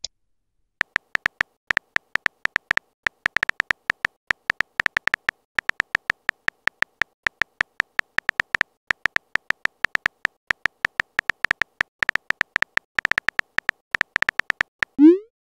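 Simulated phone keyboard typing sound effect: a rapid, uneven run of short, slightly beeping key clicks, several a second, starting about a second in. Near the end a short blip rises in pitch as the message is sent.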